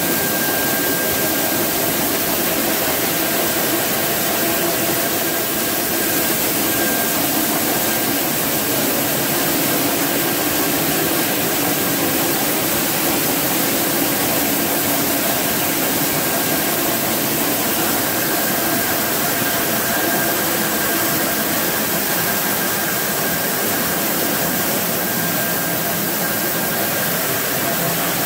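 Corn mill machinery running: roller mills and the pneumatic conveying system blowing meal through the overhead pipes and cyclones, a steady loud whooshing drone with a thin, steady whine above it.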